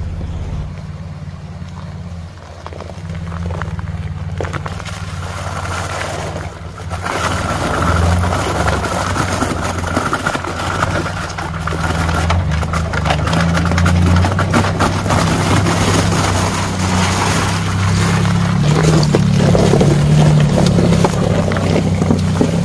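Chevrolet Colorado pickup's engine running at low speed as it drives through a shallow, rocky creek, with a rushing sound of water churned by the tyres that builds partway through.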